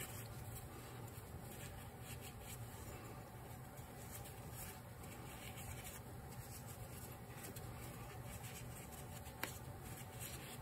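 A shop rag wiping a Honda GL1500 Goldwing carburetor float bowl clean: faint, continuous scratchy rubbing, with one small click near the end.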